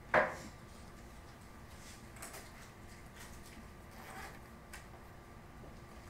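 A short thump just after the start, then a few faint, brief scratches and a light click from a stylus writing on a tablet screen, over low room tone.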